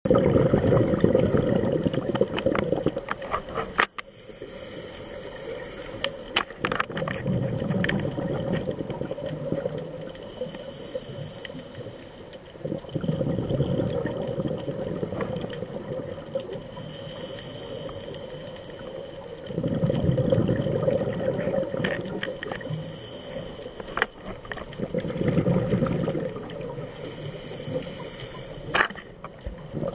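Scuba regulator breathing underwater: loud gurgling rushes of exhaled bubbles come about every six seconds. Each alternates with the short high hiss of an inhalation through the regulator.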